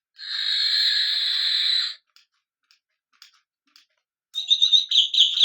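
Recorded bird calls from a singing bird clock's small speaker: a harsh, hissing call lasting about two seconds, a few faint clicks, then a rapid chirping song that starts near the end.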